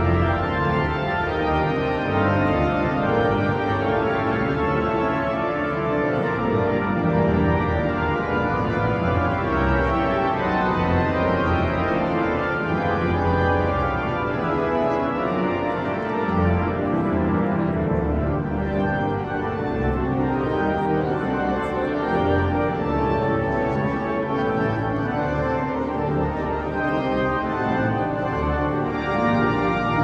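Cathedral pipe organ playing a hymn in full held chords, the bass notes moving every second or so under steady upper voices.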